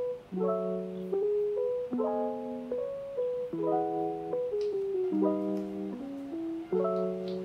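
Background music: mellow keyboard chords, changing about every second and a half, with a simple melody on top.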